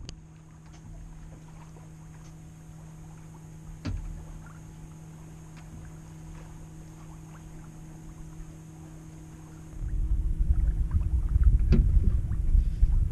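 Wind on the microphone aboard a sailboat under way: quiet at first, with a steady low hum and scattered faint clicks, then a loud low buffeting rumble from about ten seconds in.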